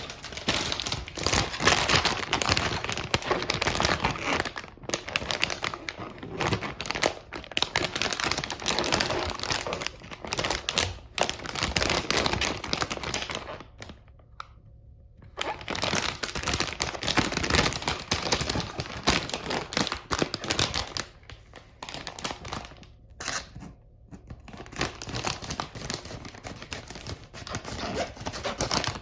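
Toy packaging being handled and opened by hand: crinkling and tearing with many small clicks and knocks, pausing briefly about halfway through.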